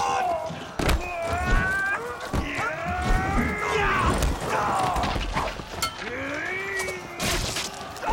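Battle din: several men's long, drawn-out shouts and screams overlapping, broken by sharp knocks and crashes of impacts.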